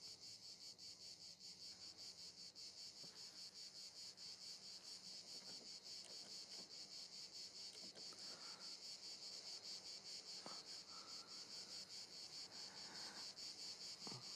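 Crickets chirring faintly, a steady, rapidly pulsing high trill, with a few soft faint rustles in the second half.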